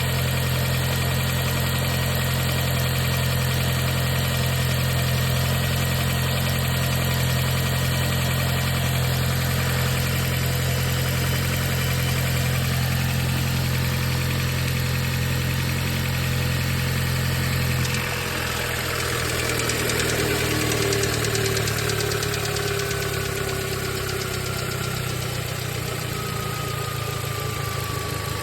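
2020 Audi S3's turbocharged four-cylinder idling from a cold start with a rattling tick, which the owner traces to the timing chain case. About 18 seconds in, the fast idle steps down and a tone slowly falls in pitch as the idle settles.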